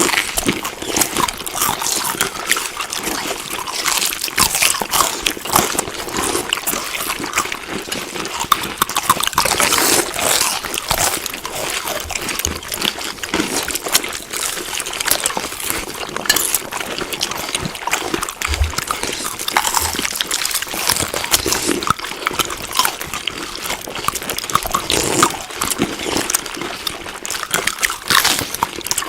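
Close-up chewing of food: a continuous run of wet mouth noises and many quick small clicks and crackles.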